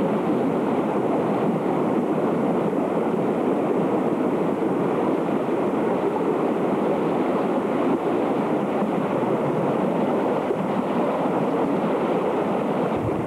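Fast, turbulent floodwater of the swollen Malom stream in flash flood, rushing across a flooded street and field: a steady, unbroken rushing noise.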